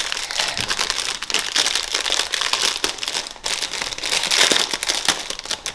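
Plastic packaging crinkling and rustling in the hands as a small toy package is handled and opened, with many fine crackles.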